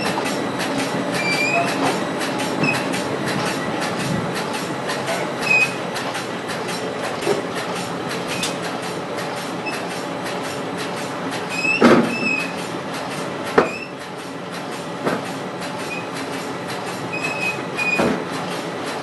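Corrugated-carton crash-lock-bottom folder-gluer running steadily, its belts and rollers making a rapid, regular clatter with short high squeaks now and then. A couple of louder knocks come near the middle.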